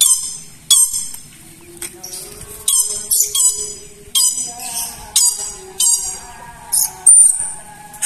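Lory (nuri parrot) giving short, shrill squawks, about ten over eight seconds, several in quick clusters.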